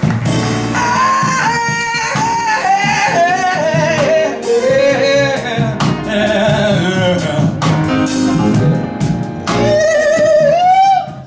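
Male vocalist singing a jazz ballad with long, wavering held notes, backed by a live combo of piano, bass and drums.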